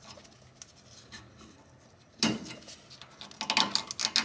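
Razor blade cutting through nylon zip ties. There is one sharp snap about two seconds in, then a quick run of light clicks near the end.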